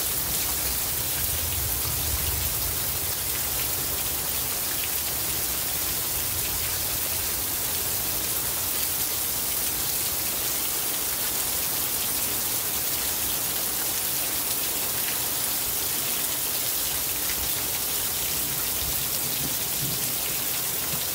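Steady hiss of monsoon rain falling, with a low rumble of distant thunder about two seconds in and again near the end.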